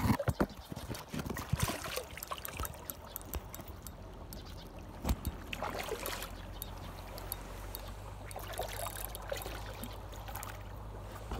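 River water lapping and trickling against shoreline rocks as a fish is released, with sharp splashes and knocks in the first two seconds and a single thump about five seconds in. A steady low hum sets in around the same moment.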